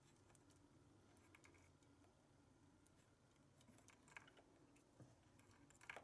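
Near silence, with faint small clicks and rustles of a cable being coiled and handled by hand. A few slightly louder clicks come in the last two seconds.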